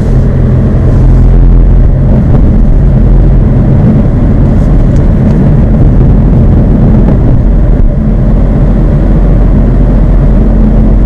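Exhaust of a 2016 Mazda 3 GT's four-cylinder engine running steadily through twin Spintech Super Pro Street 9000 mufflers, after a K&N air filter was fitted, which to the owner makes the mufflers louder. Heavy wind buffeting on the microphone.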